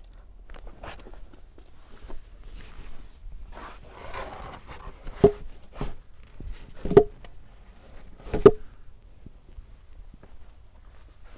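Footsteps and rustling on dry pine needles and twigs, with three loud, sharp thuds about a second and a half apart in the middle.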